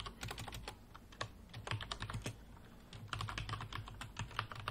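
Computer keyboard keys clicking in an irregular run of keystrokes as a short command is typed.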